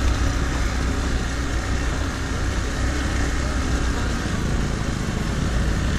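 Motorcycle engine running steadily at low speed, heard from the rider's seat as a low rumble with an even hiss of wind and tyre noise over it.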